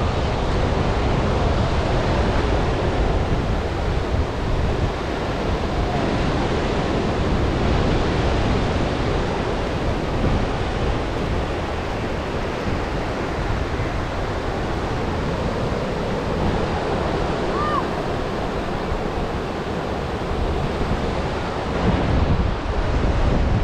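Ocean surf washing continuously onto the beach, with wind buffeting the microphone.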